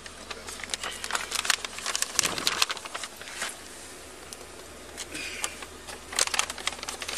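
Irregular clicks, scuffs and rustling close to the microphone over a low steady hum: handling noise, with a calmer stretch a little past the middle.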